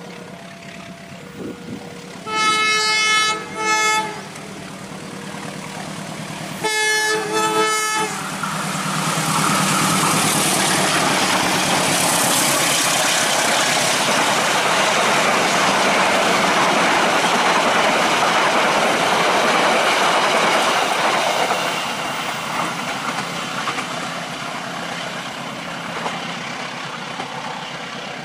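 Diesel locomotive horn sounds about two seconds in, a long blast then a short one, and once more about seven seconds in, over the engine's drone. Then the passenger carriages rush past with loud wheel-on-rail noise, which fades after about twenty seconds.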